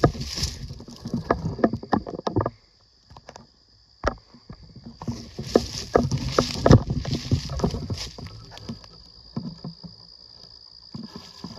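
Footsteps crunching and rustling through dry leaf litter on the forest floor, irregular and close. They stop for about a second and a half around three seconds in, start again with dense crunching, and thin out to scattered rustles near the end.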